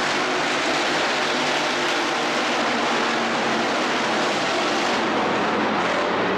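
A pack of IMCA hobby stock race cars' engines running together as they race round a dirt oval, a steady, loud, dense engine noise heard from the grandstand.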